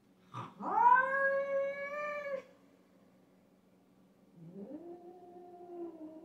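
Cats caterwauling in a territorial standoff: a brief sharp cry, then a long, loud yowl that rises and holds for nearly two seconds. About four and a half seconds in comes a lower, quieter drawn-out yowl.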